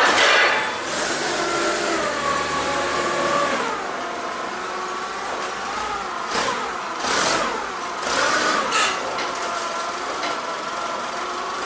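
A motor running with a whine whose pitch slides up and down, with a few sharp clatters partway through, as a pallet is being taken off a freight trailer.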